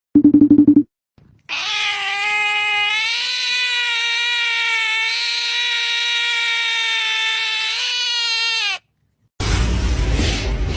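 A cat giving one long, steady yowl lasting about seven seconds. Just before it comes a short, rapid pulsing sound, and near the end a loud, noisy rumble starts.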